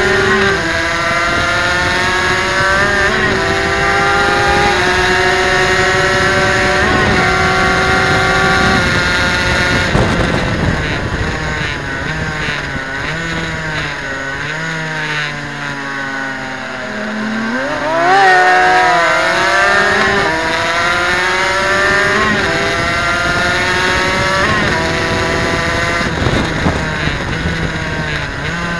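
Suzuki RGV250's two-stroke V-twin engine at racing revs, heard from on board. Its pitch climbs through several upshifts, then falls as the bike slows and shifts down. About two-thirds of the way through it rises sharply on acceleration and climbs through the gears again.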